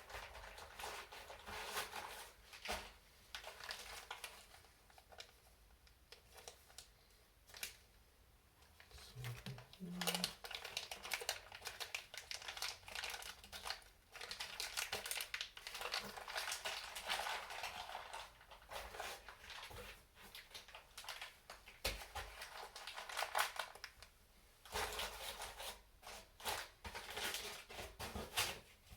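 Small plastic parts bags being rummaged through and crinkled, with irregular rustling and small clicks, in a small room.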